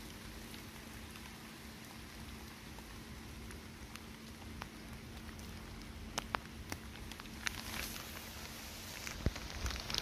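Steady outdoor hiss with scattered light ticks and taps, which come more often in the second half.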